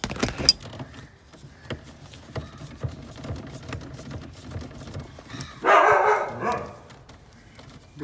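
Scattered clicks and knocks of the old gear knob being worked loose on a manual gear lever. Past the middle, a loud call lasting about a second drowns them out.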